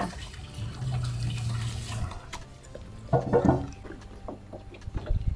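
An Australian Shepherd eating a wet homemade mash of fish, rice and sweet potato from a bowl: wet licking and smacking with small clicks.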